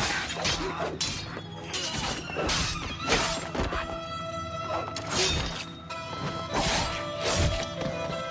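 Film fight-scene soundtrack: a rapid, uneven string of sharp sword clashes and slashes, about two a second, over dramatic background music.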